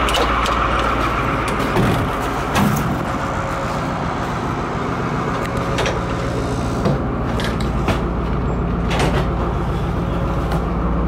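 A truck engine idling with a steady low hum, with a few knocks and clunks as the fire truck's rear compartment door is opened and the walk-in body is entered.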